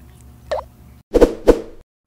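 Wet plops of melon jelly being scooped out with a melon baller: a small plop that drops in pitch about half a second in, then a few louder plops just after a second.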